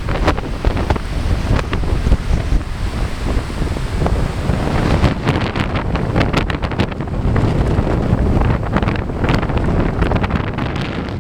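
Strong, gusty wind blowing across the microphone: a loud, uneven rumble with short crackles.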